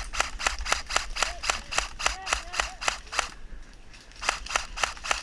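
Airsoft electric rifle firing rapid semi-automatic shots, sharp clicks at about five a second, with a pause of about a second past the middle before the shooting resumes.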